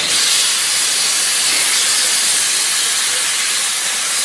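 Loud, steady hiss of a high-pressure jet, starting abruptly, with no low rumble under it.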